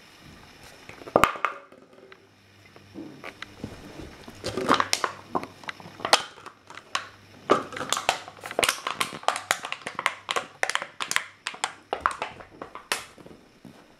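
Dog crunching and chewing an empty plastic PET bottle: a run of sharp plastic crackles and crinkles, sparse at first and coming thick and fast over the second half.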